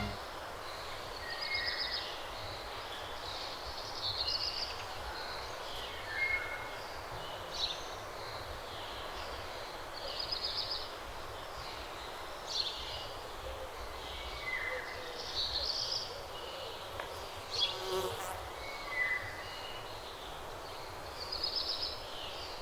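Outdoor ambience: short high chirps and buzzy trills from small animals recur every second or two over a faint steady hiss, with a single sharp click about eighteen seconds in.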